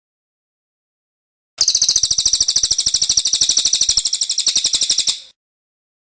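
A small songbird's very fast, high-pitched trill of sharp repeated notes, about fifteen a second, starting suddenly about a second and a half in and stopping abruptly after nearly four seconds.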